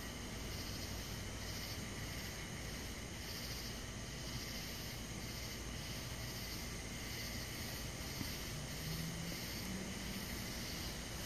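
Night insect chorus: a high chirping that pulses about twice a second over a steady high-pitched buzz, with a low steady rumble underneath.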